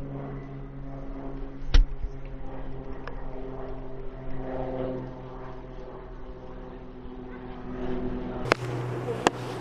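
A steady low mechanical drone with a stack of even pitched lines, like a running motor or engine. There is a sharp knock about two seconds in, and the sound changes near the end, where two short clicks follow.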